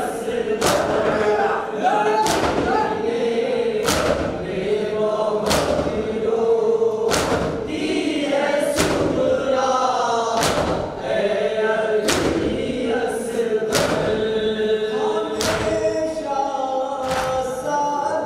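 Men chanting a noha (Shia lament) in chorus, with mourners beating their chests in unison as matam: sharp slaps a little under once a second, keeping time with the chant.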